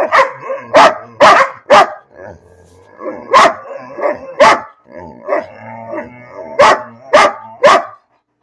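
A large dog barking at a person: about ten loud barks in uneven bursts, with lower, drawn-out grumbling noises between them as it 'talks'.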